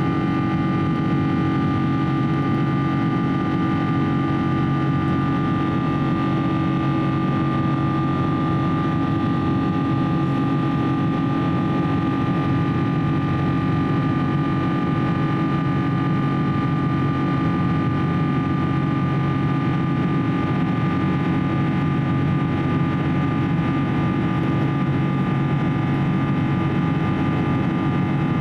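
Steady cabin noise of a Boeing 777-300ER climbing after takeoff: the drone of its GE90 engines and the rush of air past the fuselage, with several constant humming tones running through it.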